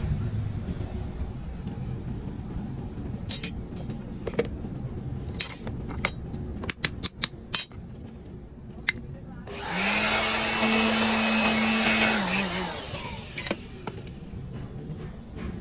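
Light metallic taps and clicks as a thin metal strip picks cast aluminium parts out of a sand mould. About ten seconds in, a small motor-driven machine starts up, runs for about three seconds with a steady hum and winds down.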